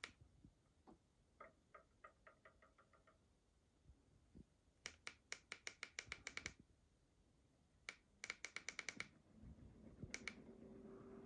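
Three quick runs of short, sharp clicks, each eight to twelve clicks long. Then a faint low hum starts near the end and rises slightly in pitch as the new DC ceiling fan's motor begins to spin up.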